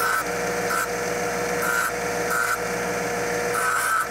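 A 6-inch bench grinder runs steadily while a zinc-plated steel captive nut is pressed against the wheel in about five short grinding touches. The nut's edges are being ground to strip the zinc plating before welding.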